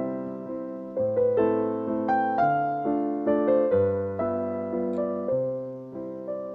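Background music: a slow, gentle piano piece with a melody of struck notes over low sustained chords, each note fading after it is played.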